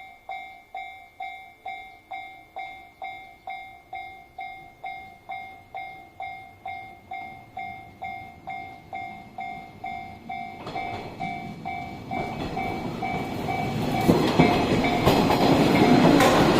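Japanese railway level-crossing alarm ringing, a bell-like tone repeating a little under three times a second. About two-thirds of the way in, a train's running noise builds up, growing loud near the end with wheels clattering over the rails, and swamps the bell.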